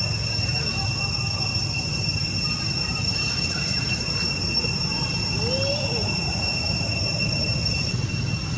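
Insects droning in a steady high-pitched whine that does not change, over a low steady rumble.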